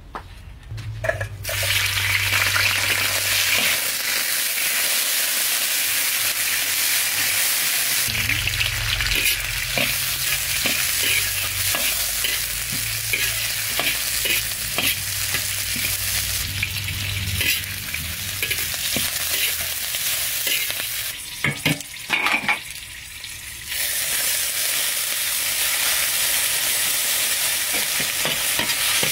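Garlic, red chillies and lemongrass sizzling in hot oil in a steel wok, stirred with a metal ladle. The sizzle starts about a second in, breaks off briefly with a few sharp knocks about three-quarters of the way through, then starts again.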